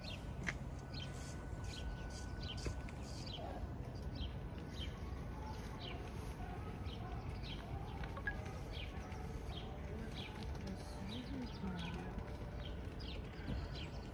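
Small birds chirping: many short, high, falling chirps, two or three a second, over a steady low background rumble.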